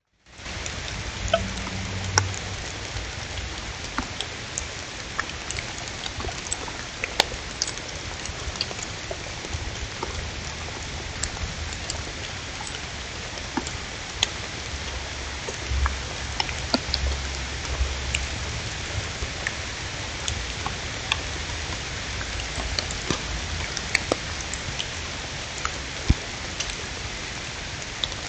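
Steady outdoor hiss with many scattered, irregular sharp ticks and taps, over a low rumble that swells and fades.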